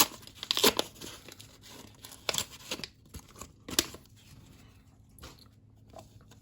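A trading-card pack wrapper being torn open and crinkled, with a string of sharp rustles and crackles over the first four seconds, then only a few faint ticks.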